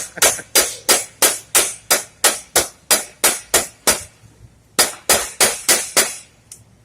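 Rubber mallet striking a 12 mm socket to tap a Cobra JR50 water pump back into its bore. There are steady, rapid blows about three a second, a brief pause about four seconds in, then another run of blows.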